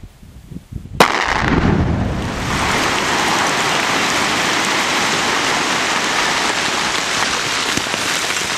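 Quarry bench blast going off with a sharp crack about a second in, followed by a long, steady rushing hiss.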